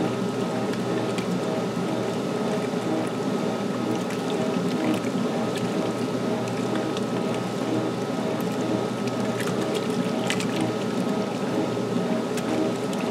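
1978 Maytag LA806 belt-drive top-load washer running steadily early in its wash cycle: an even mechanical hum with water sounds and a few faint clicks.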